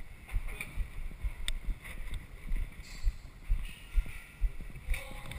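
Irregular low rumbling buffeting on the microphone, typical of wind, with a single sharp click about a second and a half in.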